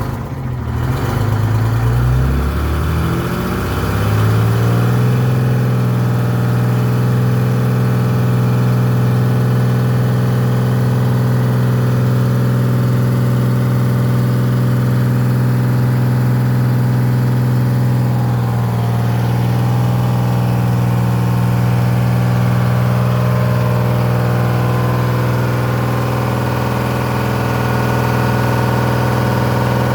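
Detroit Diesel two-stroke diesel engine running. Its speed climbs over the first few seconds, then holds at a steady fast idle while the truck's air pressure builds.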